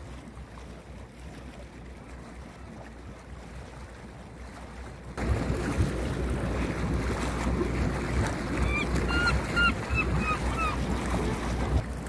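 Steady wind and sea noise on an open boat, jumping suddenly louder about five seconds in. Over it comes a quick run of about seven short, nasal calls from gulls crowding for thrown fish scraps.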